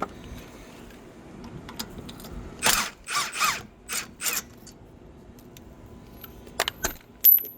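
Milwaukee high-torque cordless impact wrench hammering in about five short bursts, loosening suspension fasteners, followed by a few sharp clicks and a loud metallic clink near the end.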